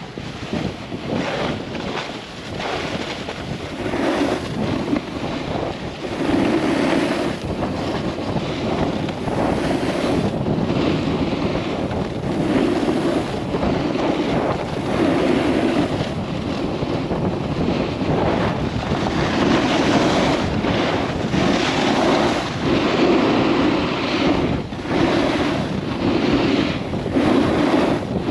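Wind rushing over the microphone of a camera riding downhill on snow, mixed with the hiss and scrape of skis or a snowboard sliding on snow. The noise swells and eases every second or two, as the turns come and go.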